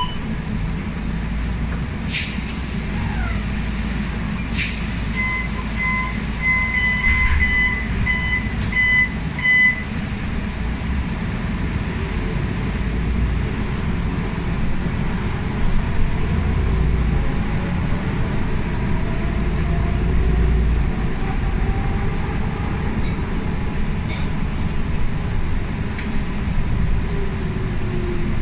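Inside a MAN A95 bus with a ZF EcoLife 6-speed automatic gearbox: a steady low engine rumble, two sharp clacks, then a run of short electronic warning beeps. The bus then pulls away, with a faint drivetrain whine that rises slowly in pitch as it accelerates.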